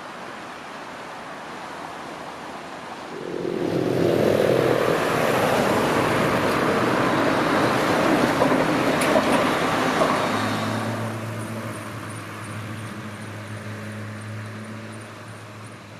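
Steady rush of river water. Then road vehicles pass close by, a van towing a box trailer among them: loud for several seconds before fading away, leaving a steady low hum.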